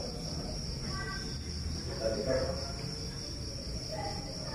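Crickets trilling in one steady high-pitched note, over a low background rumble.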